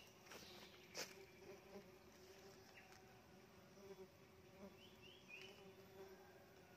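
Faint steady buzzing of Tetragonula laeviceps stingless bees flying around their opened hive box, with a short click about a second in.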